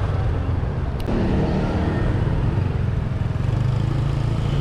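Honda SH150i scooter's single-cylinder four-stroke engine running at a steady cruise, heard from the rider's seat as a low, steady rumble mixed with road noise. A brief sharp click comes about a second in.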